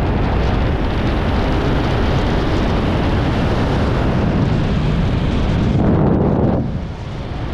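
Loud wind rush buffeting the camera microphone as a speedflying pilot flies fast under a small speedwing. It eases briefly near the end, then builds again.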